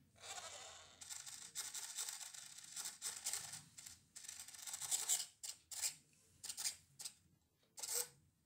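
Small electric motors and plastic gearing of a toy RC car whirring as it drives: one long run, then several short bursts of starting and stopping.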